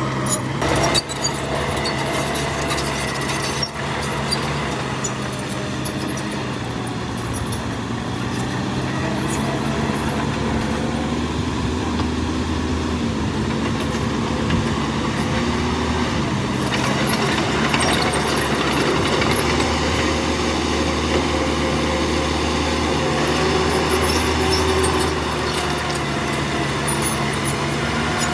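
Heavy diesel engine of earthmoving machinery running under load, steady throughout, its pitch rising and falling slightly as the load changes, with a couple of sharp knocks near the start.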